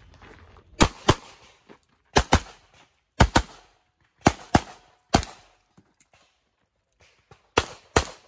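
Handgun fired in quick pairs of shots during a practical shooting course of fire: five pairs and one single, roughly one pair a second, with a pause of about two seconds before the last pair.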